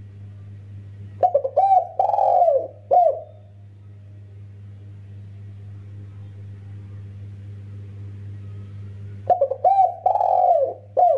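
Spotted dove cooing: two phrases of four notes, short-short-long-short, one about a second in and one near the end. A steady low electrical hum lies underneath.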